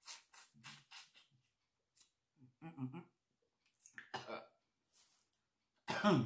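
Close mouth sounds of someone eating sauced shrimp: wet smacking and sucking of lips and fingers, with short throaty hums. Near the end comes a louder short vocal sound that falls in pitch.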